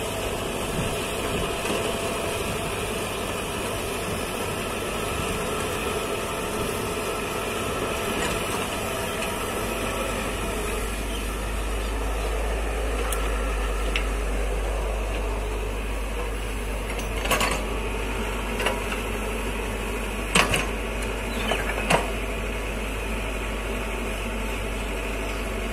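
Komatsu tracked hydraulic excavator's diesel engine running steadily as it digs and moves soil, with a deeper low rumble from partway through. A few sharp knocks come near the end.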